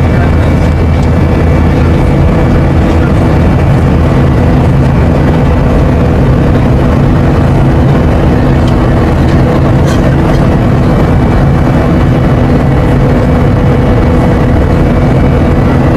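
Jet airliner's engines heard from inside the cabin: a loud, steady rumble with several steady hum tones running under it.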